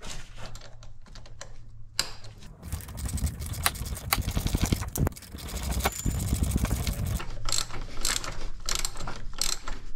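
Ratchet wrench clicking as it turns the screw of a pulley installer tool, pressing the pulley onto the power steering pump shaft. Faint clicks at first, a fast dense run of clicking from about two seconds in to seven seconds, then slower, scattered clicks near the end.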